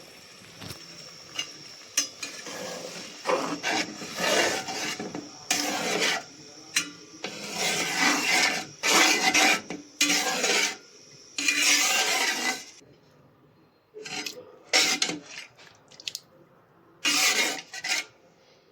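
A cooking utensil scraping and stirring against a metal pot in repeated strokes, each lasting about half a second to a second, with a short pause about two-thirds of the way through.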